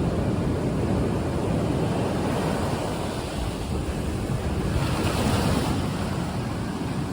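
Sea waves breaking on a beach, a steady rumble of surf with one strong wave crashing and hissing up about five seconds in. Wind buffets the microphone.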